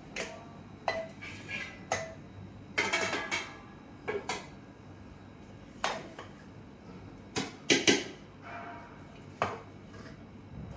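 Metal spoon scraping and clinking against a pressure cooker and a steel plate as rice is scooped out and served. Irregular sharp clinks with brief ringing, the loudest a pair about eight seconds in.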